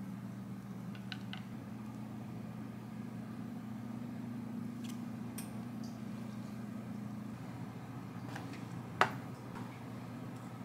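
Steady low hum of a kitchen appliance or fan. Over it come faint light taps from cheese and corn being sprinkled onto pastry pizzas on a wooden board, and one sharp click about nine seconds in. One strand of the hum drops out a little after the seventh second.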